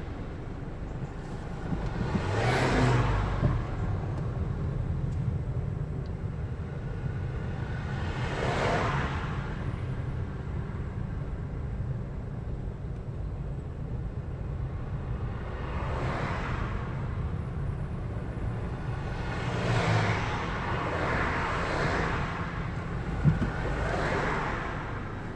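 Road traffic: a steady low rumble with vehicles swishing past, about six times, each rising and fading over a second or two.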